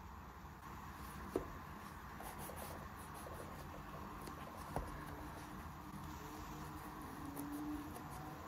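Soft rustling and crackling of a bread roll's crust as hands squeeze and handle it, with two sharp clicks, about one and a half and five seconds in.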